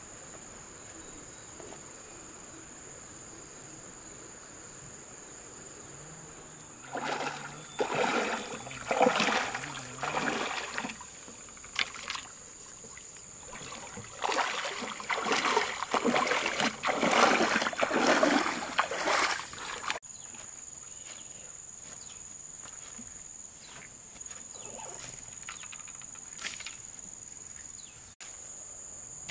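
Shallow river water sloshing and splashing around a person's legs as she wades, in irregular loud surges that start about a quarter of the way in and stop abruptly about two-thirds through. Underneath, crickets keep up a steady high chirring drone.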